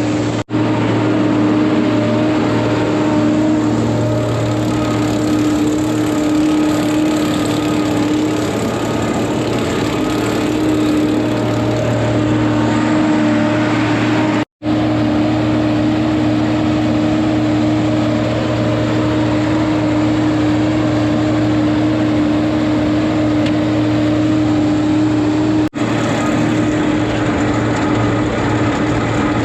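Tractor engine running at a steady speed, with a constant hum. The sound cuts out very briefly three times: just after the start, about halfway through, and near the end.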